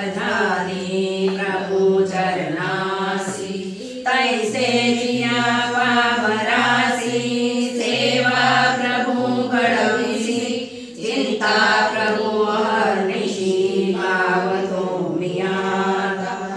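Devotional hymn chanted in long, sustained phrases over a steady low tone; the phrases break off briefly about four and eleven seconds in.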